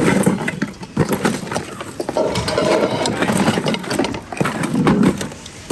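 Hands rummaging through a bin of household goods: objects knocking and clattering together in a string of short, irregular knocks.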